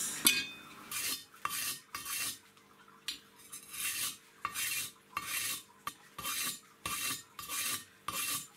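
Steel deba knife blade scraped again and again across a concrete block, a regular run of scraping strokes a little over one a second, grinding down the chipped tip to reshape it.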